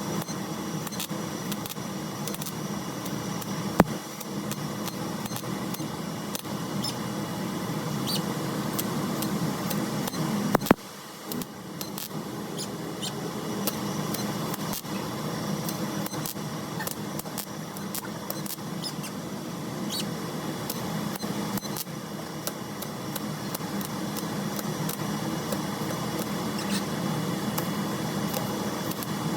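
Welder crackling steadily while holes in a car's quarter panel are welded shut, with a short break about eleven seconds in.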